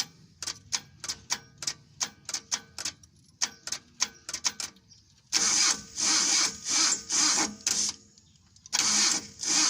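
A run of sharp, irregular clicks, then the Mitsubishi L300 gasoline engine cranking on its starter in two pulsing bursts without settling into a run. This is the hard starting that the mechanic traces to a failing ignition coil resistor.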